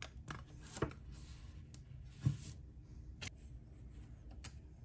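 Small clicks and light taps of die-cast model car parts being handled and fitted by gloved hands, with faint rustling in between; the sharpest knock comes about two seconds in.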